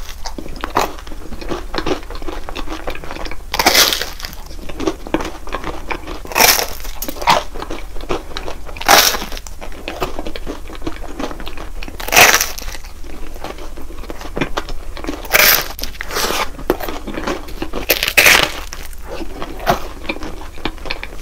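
Close-miked crunching and chewing of a crispy mango croffle (croissant-dough waffle): a loud, crisp crunch about every three seconds, with softer chewing and crackling in between.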